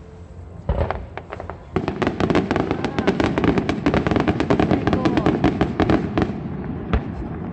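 Fireworks bursting: a single bang about a second in, then a dense rapid barrage of bangs and crackles lasting about four seconds, and one more bang near the end.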